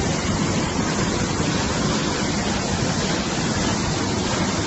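Muddy floodwater in a swollen river rushing over rocks, a steady, unbroken rush of water.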